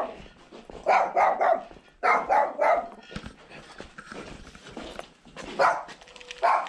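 A dog barking in quick runs of three or four barks, then a couple of single barks near the end.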